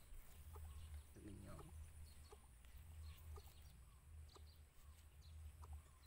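Chicken clucking faintly, with one low call standing out about a second and a half in.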